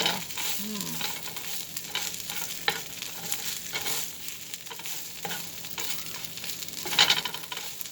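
Chopped roti and chili chicken for kothu being stirred and scraped on a hot tawa, with a light sizzle under irregular scrapes and clicks; a louder scrape about seven seconds in.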